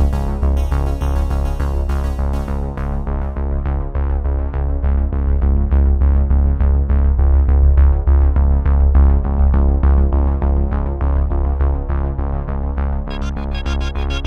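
Background electronic synthesizer music with a heavy bass and a steady beat. The treble drops away about three seconds in and returns near the end.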